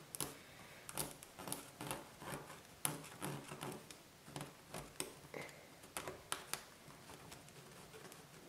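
Faint scratching of a pen drawing lines on denim along a clear quilting ruler, with irregular light ticks and taps from the pen and ruler being handled, about one or two a second.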